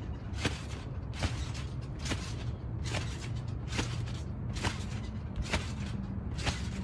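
Trampoline springs and mat creaking with each bounce, a sharp creak repeating at an even pace a little more than once a second.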